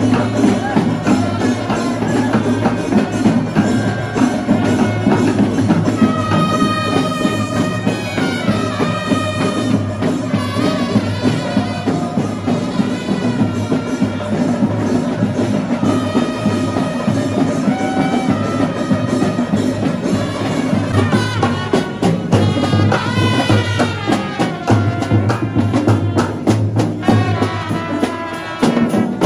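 A marching brass band playing: trumpets carry a melody over a steady beat of drums.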